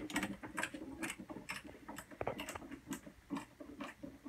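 Hand screwdriver turning screws to fasten the evaporator fan bracket in a freezer, a quiet run of small irregular clicks and taps, about three or four a second.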